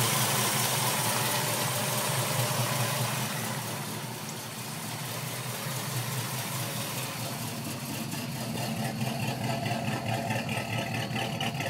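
1979 Camaro Z28's 305 V8 idling steadily. It drops in level about four seconds in, then comes back up with a more even pulsing beat near the end.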